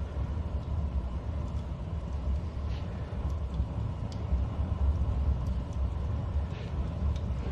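Wood fire burning hard in a cast-iron Invicta Altea stove with its lower air inlet and damper wide open: a steady low rumble of the fierce draft, with a few faint crackles.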